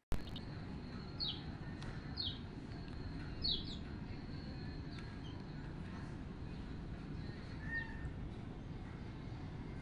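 A few short, falling bird chirps over a steady low rushing noise, with the chirps bunched in the first few seconds. The sound starts and stops abruptly.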